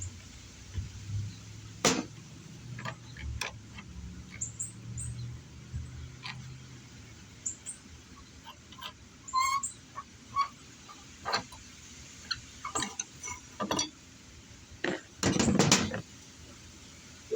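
Scattered metallic clicks, taps and scrapes of hand tools working on a leaking outdoor hose bib as it is taken apart for a new washer, with a dense rattle of knocks near the end; birds chirp faintly.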